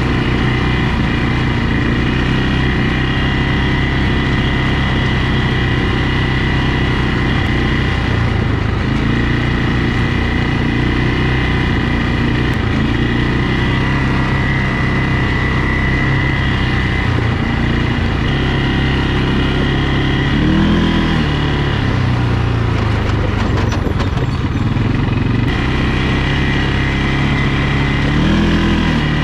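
ATV engine running as the quad is ridden, its note shifting up and down with the throttle, with two short revs about 21 and 28 seconds in.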